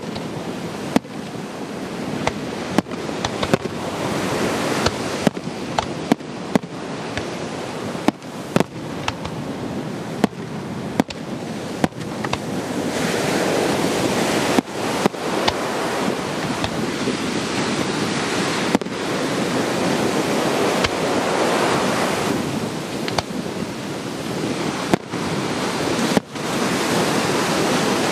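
Aerial fireworks shells bursting in a long, irregular series of sharp bangs over a steady rushing noise of ocean surf, which swells louder about halfway through.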